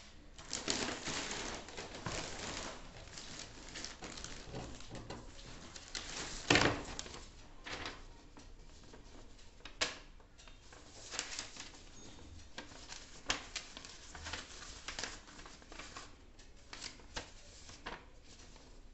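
Irregular rustling and crinkling with scattered sharp clicks and knocks, the loudest knock about six and a half seconds in.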